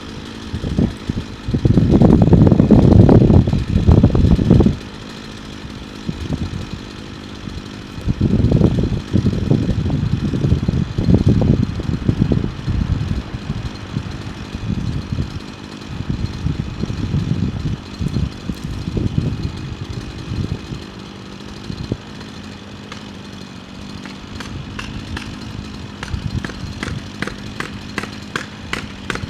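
Chainsaw running steadily, with heavy low rumbling about two to five seconds in and again from about eight to twelve seconds in. A run of sharp ticks, about two a second, comes near the end.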